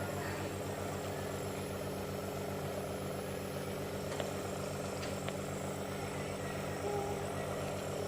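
Small electric nebulizer compressor running with a steady, buzzing hum, driving the mist for a child's inhaled cough treatment.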